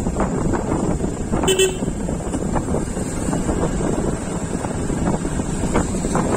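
Wind buffeting the microphone over a motorcycle's engine running steadily on the move, with one short vehicle horn toot about a second and a half in.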